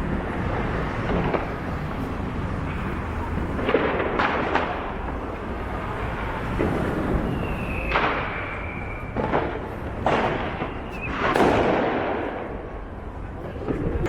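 New Year's Eve firecrackers and fireworks going off in a city, about six sharp bangs at irregular intervals over a steady background rumble. A short whistle comes just before one of the bangs near the middle.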